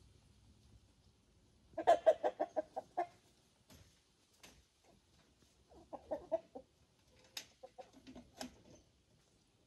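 Chickens clucking: a quick run of about ten clucks about two seconds in, a shorter run around six seconds, and a few single calls after.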